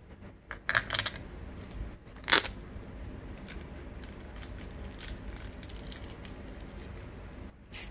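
Small metal clicks and handling noises of a piston circlip being fitted to a two-stroke piston, with a plastic parts bag crinkling about a second in and one sharper click a little over two seconds in, then a run of faint ticks.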